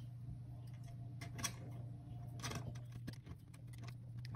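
Kitchen knife cutting a soft dough log into small pieces on a wooden board, the blade tapping the wood in several short sharp knocks. A low steady hum runs underneath.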